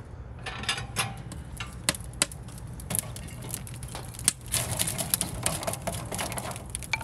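Wood fire crackling and popping inside a stove built from stacked steel wheels, with irregular sharp clicks as the hinged steel door is swung open and the burning wood is pushed around. The crackle thickens about halfway through.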